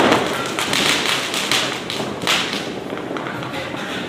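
Diwali firecrackers going off, a dense run of rapid cracks and pops that thins to a fainter crackle after about two and a half seconds.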